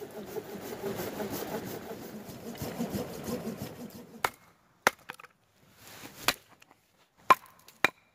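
Hatchet splitting firewood on a chopping block: about five sharp chops spread over the second half, after a few seconds of continuous rough noise.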